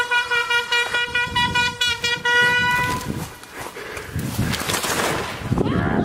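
Handheld air horn blasting one long steady note for about three seconds, followed by loud rustling and wind noise on the microphone while running.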